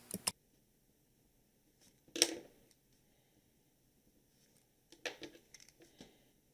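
A marker working on paper in a quiet room. There is a single sharp tap about two seconds in, then a few short, scratchy strokes near the end.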